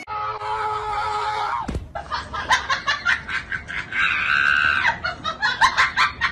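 A long excited scream, a single thud a little under two seconds in, then a run of laughing and shrieking with a high held shriek midway.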